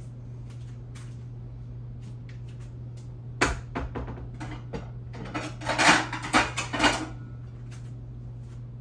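Dishes and kitchen utensils knocking and clattering as floured steak slices are handled: one sharp knock about three and a half seconds in, then a quick run of clattering a couple of seconds later. A steady low hum runs underneath.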